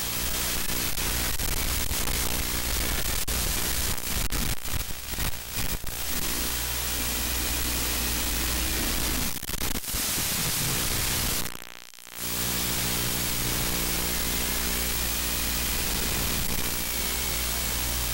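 Steady static hiss with a low electrical buzz from an analog 5.8 GHz FPV video link, with a brief cut-out about twelve seconds in.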